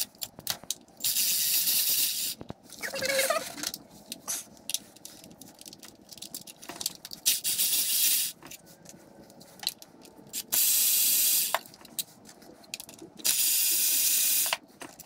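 Cordless electric ratchet whirring in short runs of about a second each, four or five times, with clicks and clinks of the tool and bolts in between, as it backs out the bolts of the engine's lower timing cover.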